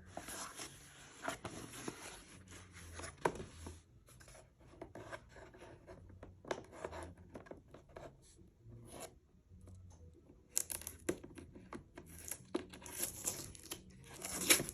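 Packaging being torn open and rustled by hand, with irregular crinkling, rubbing and small clicks that grow busier near the end.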